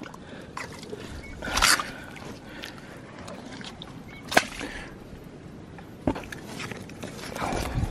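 Footsteps squelching and sloshing through soft tidal mud among mangrove roots, with scattered sharp clicks and snaps, the loudest a single snap a little past halfway.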